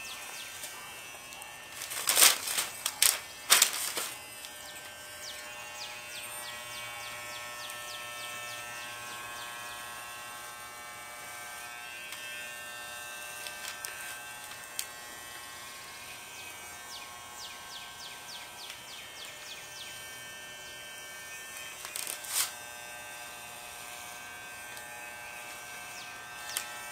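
Electric hair clippers running steadily as they cut through a man's hair. A few sharp knocks come about two to four seconds in, and one more near the end.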